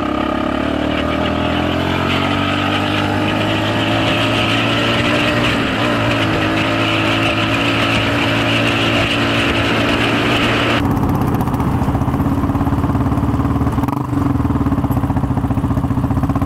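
Yamaha Raptor 350 ATV's single-cylinder four-stroke engine running under way, its pitch climbing over the first few seconds and then holding steady. About eleven seconds in, the hiss above the engine drops away abruptly while the engine note carries on.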